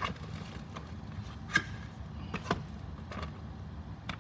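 Handling noise on a workbench: a series of short knocks and taps as things are set down and a cardboard charger box is picked up and moved. The loudest knock comes about a second and a half in, over a steady low hum.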